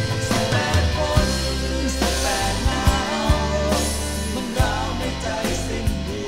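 Thai rock song playing from a vinyl record, with a full band: drums hitting regularly over a stepping bass line.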